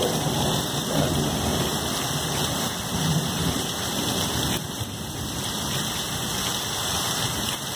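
Heavy thunderstorm downpour: a steady rush of rain pouring onto the ground and roof, with low thunder rumbling about a second in and again around three seconds.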